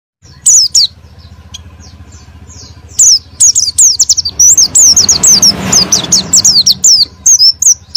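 White-eyes (pleci) singing: rapid runs of high, quick falling chirps, sparse at first and almost continuous from about three seconds in. A low hum runs underneath, and a rushing noise swells and fades around the middle.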